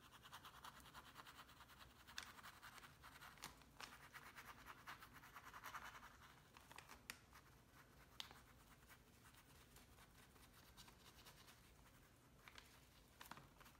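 Faint scratchy scrubbing of a paintbrush dry-brushing acrylic paint back and forth on the painting, mostly in the first half, with a few light clicks.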